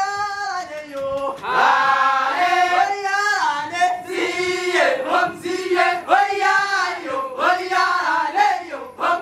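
A Maasai boys' group singing a folksong together in chorus, a chant-like melody of several male voices.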